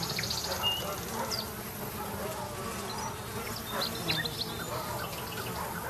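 Flies buzzing steadily, with scattered short bird chirps over the top.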